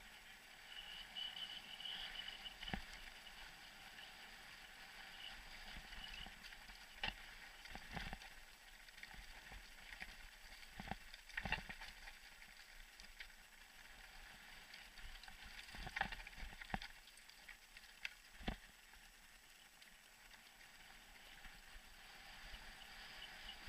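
Mountain bike rolling down a dry dirt trail, with a steady hiss of tyre and trail noise broken by a handful of sharp knocks and rattles of the bike as it hits bumps.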